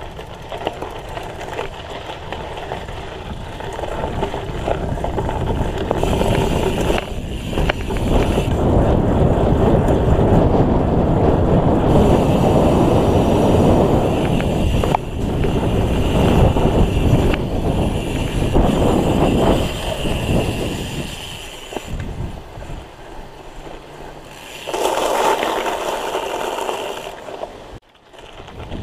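BMX bike ridden fast over gravel and pavement: tyres rolling and crunching, with wind rushing over the chest-mounted camera's microphone. The noise builds over the first few seconds, stays loud through the middle, drops off after about twenty seconds and surges briefly near the end.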